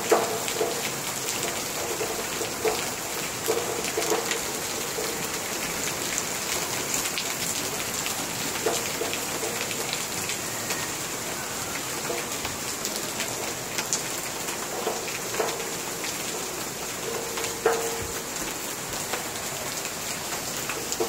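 Heavy rain falling steadily, a constant hiss with scattered sharper drips landing close by.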